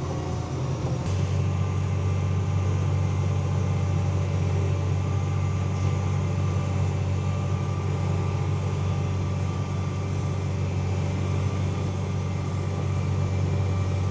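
Tractor engine running steadily under load while towing an air seeder, its low drone changing and getting stronger about a second in as the tractor is shifted down a few gears.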